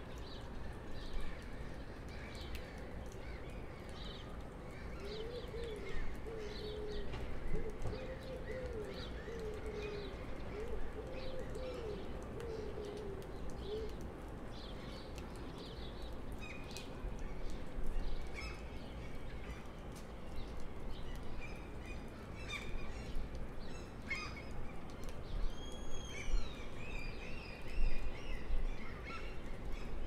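Birds chirping and calling in the trees over a steady low city hum, with a low wavering call for several seconds in the first half and clearer whistled calls near the end.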